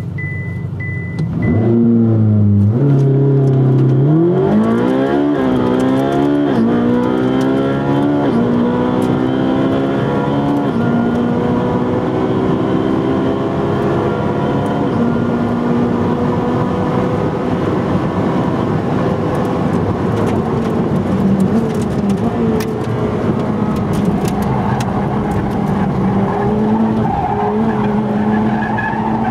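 Ferrari 458 Speciale's naturally aspirated flat-plane V8, heard from inside the cabin. It sits at a low idle behind three short high beeps, then launches hard about a second and a half in and accelerates flat out. Its note climbs in each gear and drops sharply at each of several quick upshifts, which come further apart as speed builds. It then runs on at high speed with a steadier note.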